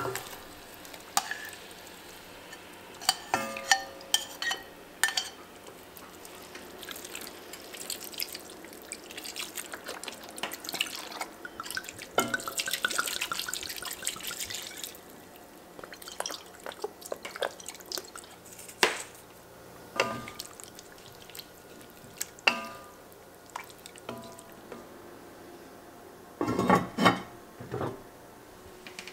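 Metal tongs clicking against an enameled cast iron Dutch oven as beef chunks are dropped back into the pot. About halfway through comes a few seconds of red wine being poured over the meat. Near the end the heavy lid is set on with a cluster of clanks.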